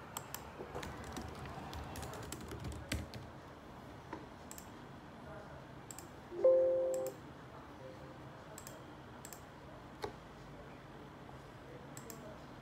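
Typing on a laptop keyboard: soft, irregular key clicks, thickest in the first few seconds and sparser after. About halfway through comes a short ringing tone, the loudest sound, fading over under a second.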